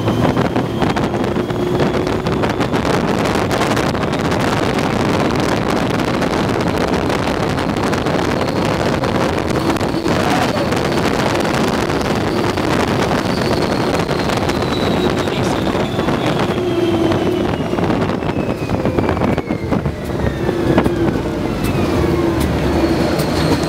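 Open Test Track ride vehicle running fast on its outdoor loop: a steady rush of wind over the open car and on the microphone, mixed with the car's tyre and running noise. A faint whine falls in pitch through the second half as the car slows.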